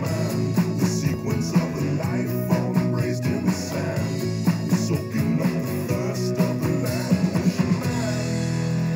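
Rock music with guitar; near the end it gives way to a sustained held chord.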